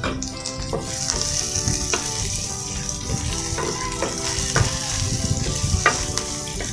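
Onions, garlic and ginger sizzling in hot oil in a stainless steel pan, the hiss swelling about a second in. A wooden spatula stirs them, knocking and scraping against the pan every second or so.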